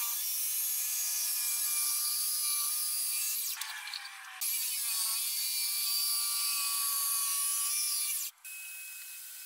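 Makita corded jigsaw running and cutting through wood. The cut stops briefly about three and a half seconds in, then resumes, and it is quieter near the end.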